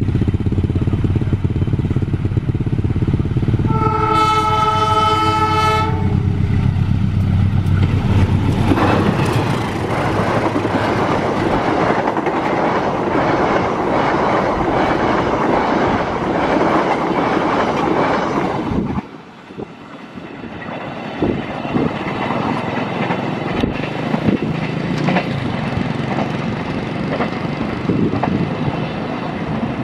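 Diesel-hauled passenger train passing close by: the locomotive's low engine rumble, a chord horn blast of about two seconds around four seconds in, then the carriages' wheels clattering over the rail joints as they go by. The clatter briefly drops away about 19 seconds in, then returns.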